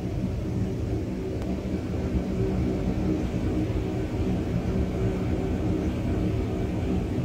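Steady low rumbling drone with a few faint held tones, a 'sound of space' ambient track: electromagnetic recordings turned into audible sound.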